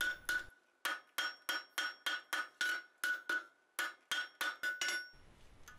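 Hand hammer striking a hot steel bar on the horn of an anvil, about three blows a second, each with a short metallic ring: dressing a freshly bent corner. The blows stop about five seconds in.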